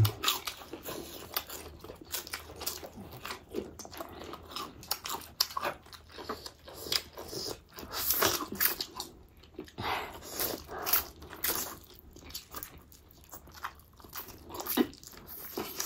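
Close-miked eating: crunching and chewing of lettuce and food, with noodles slurped up in short, louder stretches about halfway through.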